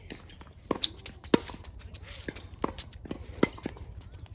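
Tennis rally on a hard court: sharp pops of rackets striking the ball and the ball bouncing, several times, the loudest about a second and a half in, with shuffling footsteps.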